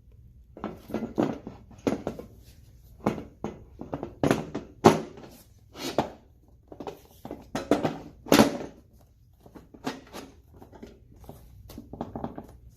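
Irregular knocks and clacks of a backrest and its bushings bumping against the seat frame as they are worked into their holes and slots. The two loudest knocks come about five seconds in and a little after eight seconds.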